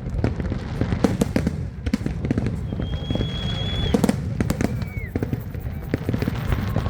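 Fireworks display: many bangs and crackles in quick, irregular succession. A high whistle starts about three seconds in and lasts about a second, and a shorter falling whistle comes near the five-second mark.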